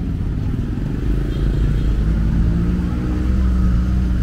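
Street traffic: motorbike and car engines running close by, the engine hum growing louder about a second in and holding steady.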